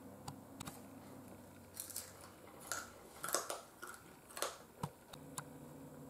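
Faint, scattered clicks and small rustling noises, about a dozen of them, over a low steady hum.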